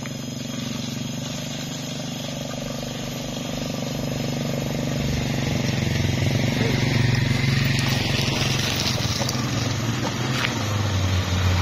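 Daihatsu Xenia's engine pulling up a slippery dirt slope, getting steadily louder as it nears over the first half, with a motorcycle engine passing near the start.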